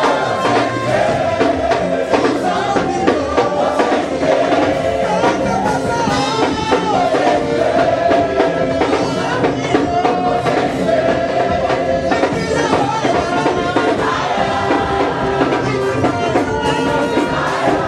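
Loud gospel praise music with a steady beat and group singing, a congregation singing along to the band.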